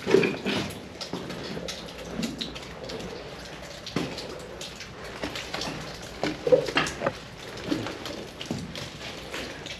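Water dripping and pattering in an abandoned concrete air raid bunker: irregular drips and small splashes over a steady hiss.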